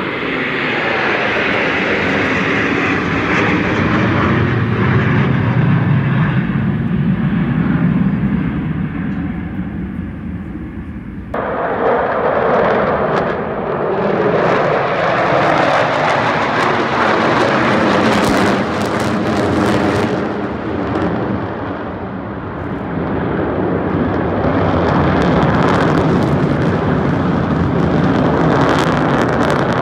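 Jet engine noise from six twin-engine Sukhoi fighter jets flying over in close formation, loud and continuous. About a third of the way in the sound turns abruptly harsher and hissier, then a whine falls in pitch as the formation passes, and the noise swells again near the end.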